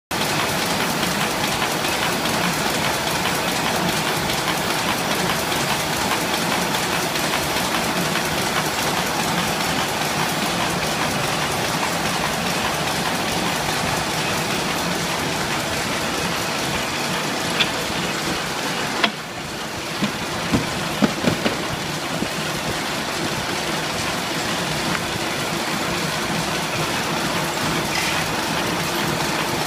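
Envelope gluing machine running steadily, a dense continuous mechanical running noise from its feed and conveyor. A little past the middle it briefly drops, and several sharp knocks follow.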